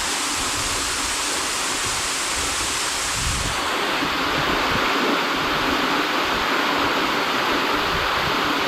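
Norvan Falls waterfall pouring, a steady rush of water. A little past three seconds in, the rush loses its highest hiss and grows fuller in the middle, and low rumbles on the microphone come and go.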